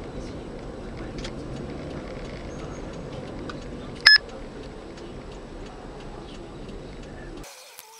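Steady road and engine noise heard from inside a moving car, with a single short, high electronic beep about four seconds in. The road noise cuts out abruptly just before the end.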